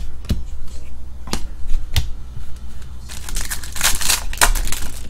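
A few light clicks of trading cards being handled, then a foil trading-card pack wrapper being torn open and crinkled by hand for about a second and a half near the end.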